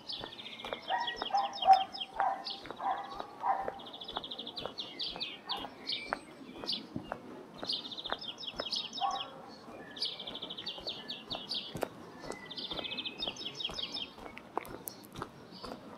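Songbirds singing, mostly rapid high trills of quick repeated notes that come back every second or two, with some lower warbling notes in the first few seconds.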